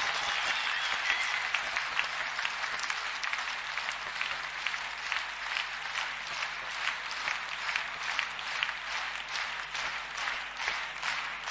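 Audience applauding. In the second half the claps stand out more and fall into a fairly even beat.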